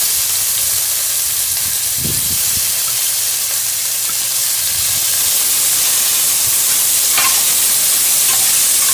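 Hot oil sizzling steadily in a pan with garlic and fried tofu pieces just added. There is a soft knock about two seconds in and a few faint clicks near the end.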